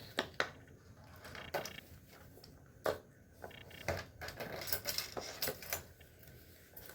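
Plastic fidget toys being handled and set down: irregular clicks, taps and knocks with light rustling and a few brief squeaks.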